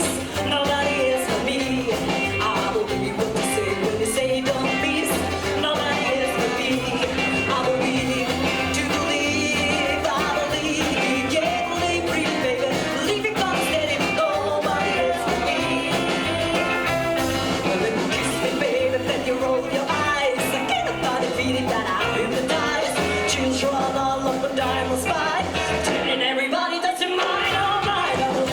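Live rockabilly band playing a rock and roll number with a singer. The bass and drums drop out for about a second near the end, then come back in.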